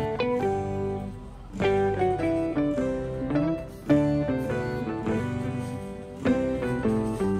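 Instrumental background music with a plucked-string melody, moving note by note.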